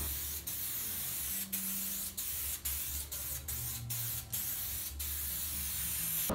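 Aerosol spray can of silver metallic motorcycle paint hissing as the base coat is sprayed on in thin passes. The hiss is steady but broken by about ten very short gaps, every half second or so, where the nozzle is let go between strokes.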